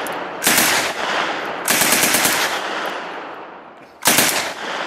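MP40 9mm submachine gun firing three short full-auto bursts, about half a second in, about two seconds in and about four seconds in, each trailing off in an echo. The gun has been fired empty.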